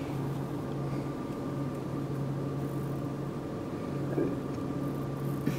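Car engine running at low speed, heard from inside the closed cabin as a steady low hum.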